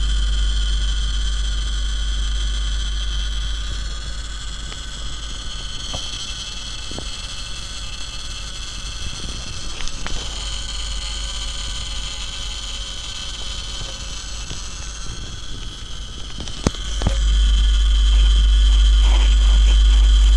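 Faulty Kostal PIKO 10.1 grid-tie solar inverter buzzing with a low hum, a steady high whine over it and scattered crackles; the buzz gets louder about three-quarters of the way through. The crackling seems to come from its three-phase circuit board, in an inverter that measures zero input and output voltage.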